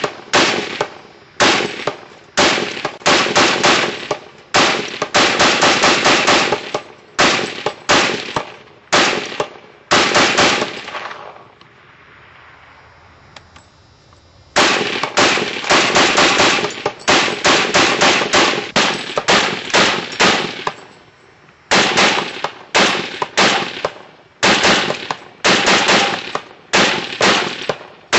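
Semi-automatic Browning 1919A4 fired in quick strings of single shots, about three a second, each shot ringing out briefly after it. There is a pause of about three seconds near the middle.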